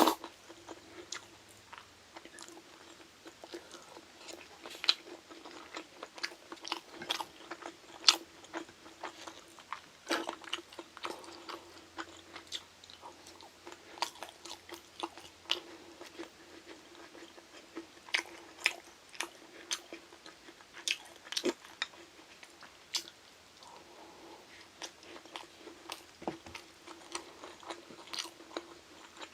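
Close-miked chewing and crunching of Korean side dishes, with irregular sharp crunchy clicks throughout, over a faint steady hum.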